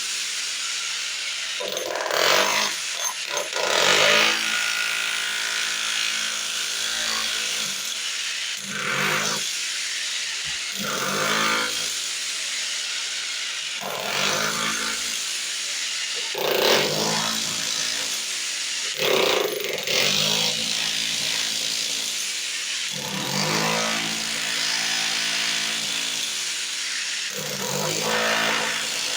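Electric power tool opening a hole to reach a hidden leak, its motor running steadily with a louder, harsher surge every few seconds as it bites into the material.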